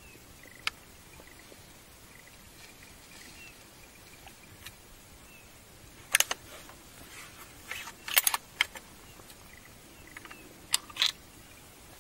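Handling noise close to the microphone: sharp clicks and brief rustles, one early, then in clusters from about six seconds in, over a quiet forest background with faint high chirps in the first few seconds.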